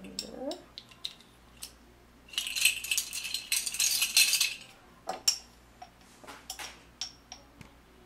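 Measuring spoon scooping dry yeast granules out of a glass jar: a dense rattling and clinking for about two seconds a couple of seconds in, with scattered light clicks of the spoon against the jar before and after.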